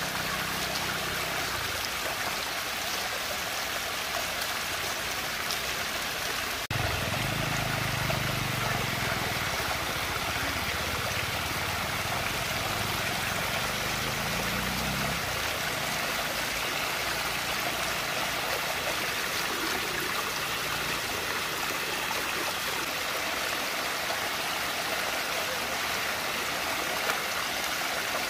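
Water rushing and churning steadily in a large whirlpool vortex. The sound breaks off for an instant about seven seconds in, and a low rumble runs under the water for several seconds after that.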